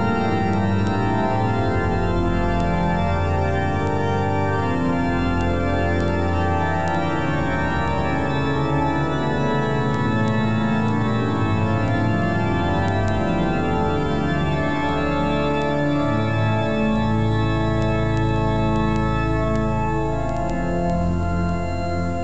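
Organ music: slow, long-held chords that change every second or two over deep sustained bass notes.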